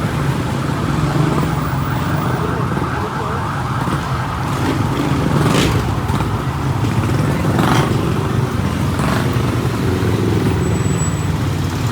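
Street traffic: a motor vehicle's engine running steadily, with other vehicles passing by in brief swells, three of them in the later half.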